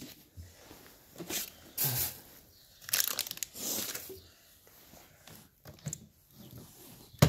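Scattered bursts of rustling and crinkling, with a sharp knock at the very end.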